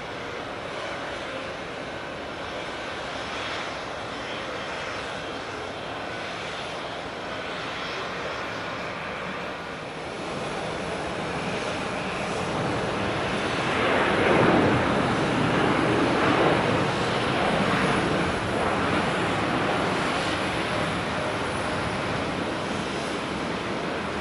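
Jet airliner passing: its engine noise builds from about the middle, peaks a little past halfway with a sweep in pitch, then stays loud as it moves away.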